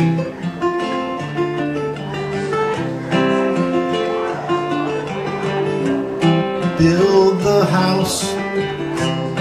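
Steel-string acoustic guitar playing a picked instrumental passage of separate ringing notes, with a singing voice joining about seven seconds in.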